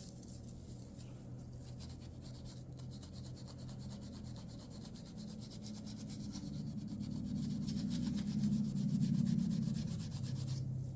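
Steady scratchy rubbing of abrasive on a walnut revolver grip by hand, taking off the old polyurethane finish; it grows louder toward the end.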